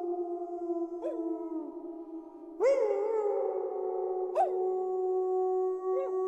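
A pack of wolves howling in chorus: several long howls overlap, each held at a steady pitch. New voices break in with short howls that rise and fall, about a second in, loudest at about two and a half seconds, and again near four and a half and six seconds.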